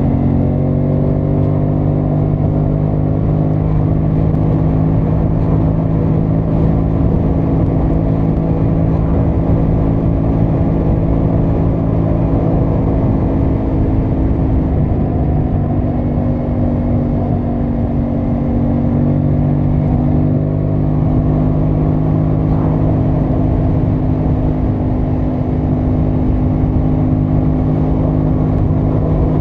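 Aprilia Tuono 660 Factory's parallel-twin engine pulling at steady cruising revs, its pitch rising a little in the first couple of seconds and then holding nearly level, with wind and road noise underneath.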